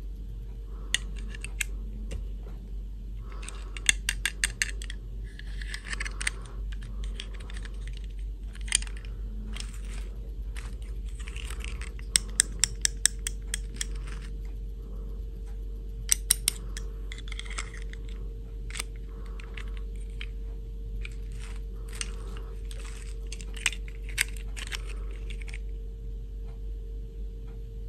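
Small plastic dolls and hard plastic clip-on dresses being handled: scattered sharp plastic clicks and snaps, some in quick runs of ticks, with light rustling between them. A faint steady hum lies underneath.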